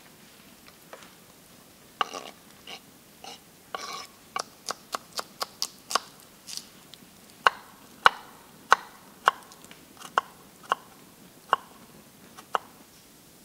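Knife chopping: a run of sharp, separate chops starting about two seconds in. They come quickly at first, then settle to roughly one every half second to a second, and the loudest fall near the middle.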